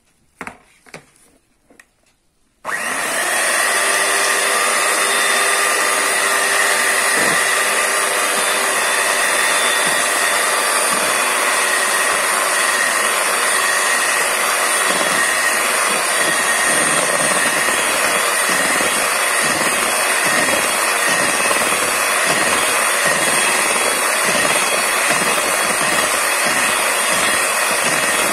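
Electric hand mixer switched on about two and a half seconds in after a few light knocks, then running steadily at a constant speed as its beaters whisk flour into a runny crepe batter.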